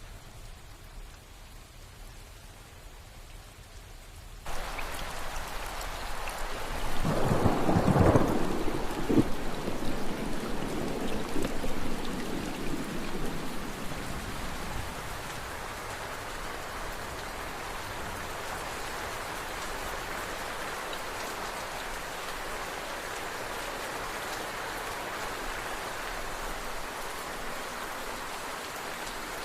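Steady rain, quieter at first, then suddenly louder about four and a half seconds in. A thunderclap cracks about eight seconds in and rumbles for several seconds before the rain settles back to a steady level.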